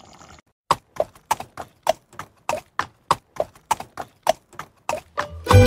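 Evenly spaced hollow knocks, about three a second, with silence between them, like clip-clop woodblock percussion opening a music track; plucked-string music comes in near the end.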